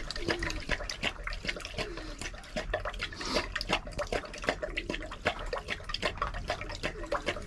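Rottweiler lapping and slurping milk-soaked dog feed from a terracotta bowl: a quick, irregular run of wet laps, several a second.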